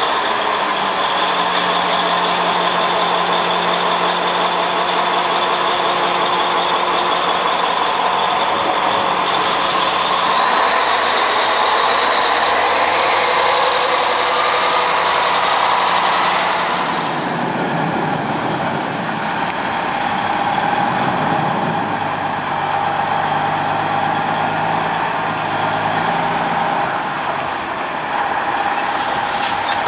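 Heavy diesel engines running steadily: first the Cat 769 haul truck's engine, then, after a change about 17 seconds in, the Peterbilt heavy tow tractor's diesel as it moves off.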